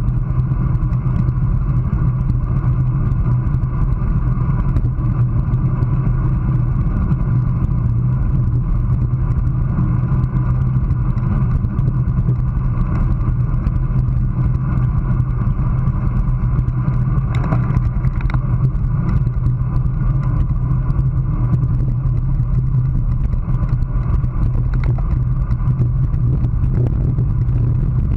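Steady wind rush and road rumble on a bike-mounted GoPro, from a road bike riding at about 24 mph.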